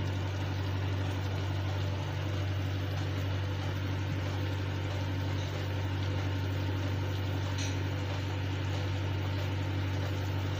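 Fish broth bubbling in a pan on the stove, over a steady low hum.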